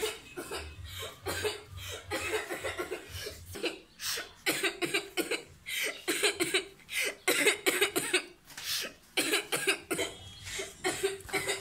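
A girl crying in short, repeated sobs, wiping her eyes. A faint low hum lies under the first few seconds.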